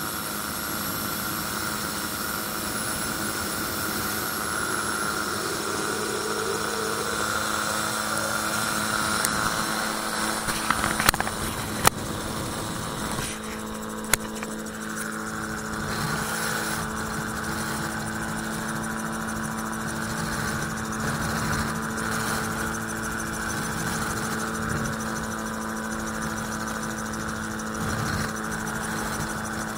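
Magni M16 autogyro in flight: its engine and pusher propeller run with a steady drone, under a constant rush of wind in the open cockpit. A few sharp knocks come about eleven and fourteen seconds in.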